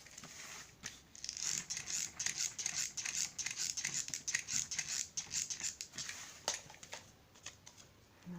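Rapid scratchy strokes on cardboard, starting about a second in and stopping about six and a half seconds in.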